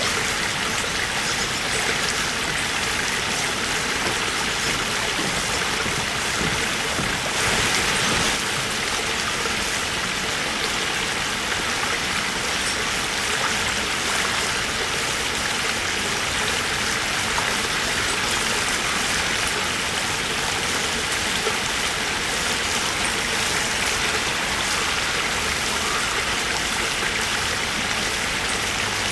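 Shallow stream water flowing and splashing steadily over gravel, with a small spill of water pouring in; a little louder for about a second, some seven seconds in.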